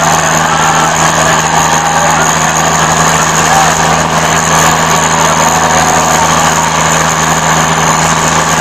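Swaraj 855 tractor's diesel engine running flat out under heavy pulling load, a loud steady drone that holds without letting up.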